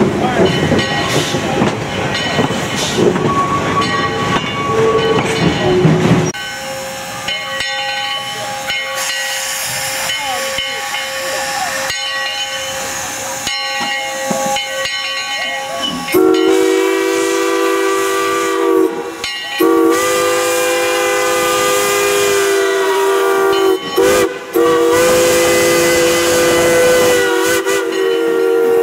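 Steam train running, then hissing steam. From about halfway, a multi-note chime steam whistle is blown in long blasts with a few brief breaks.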